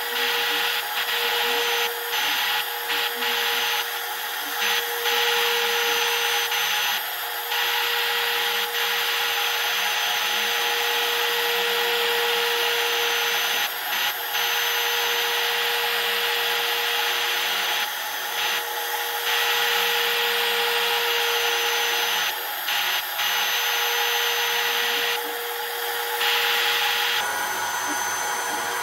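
DeWalt trim router on a CNC mill spinning a quarter-inch three-flute ball-nose end mill and cutting a contour into a wooden 2x4. A steady high whine mixes with the rasping of the cut, and a lower tone starts and stops every few seconds.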